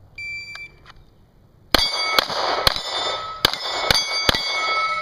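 A shot-timer start beep, then six pistol shots in quick succession, each answered by steel targets ringing; the ringing carries on after the last shot.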